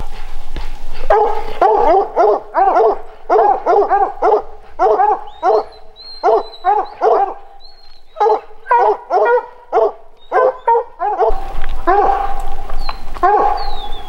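Hunting hounds barking in quick repeated runs, about two to three barks a second, at a mountain lion they have treed.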